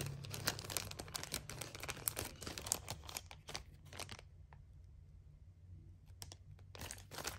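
Packaging crinkling and rustling as a small jewelry gift box and its wrapping are handled: a quick run of small crackles for about four seconds, a pause, then more near the end.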